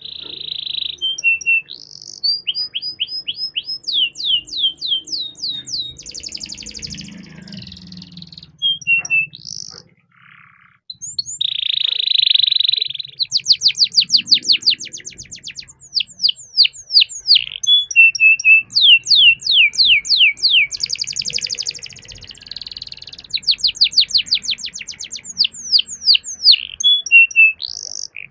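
Domestic canary singing a long, loud song: rapid rolls of repeated notes, each sweeping down in pitch at about eight to ten a second, broken by buzzy held notes and short chirps, with a brief pause partway through.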